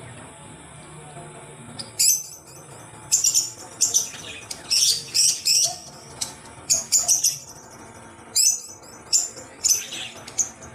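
Birds chirping in rapid, high-pitched bursts, starting about two seconds in and repeating in quick groups through the rest, over a faint steady background.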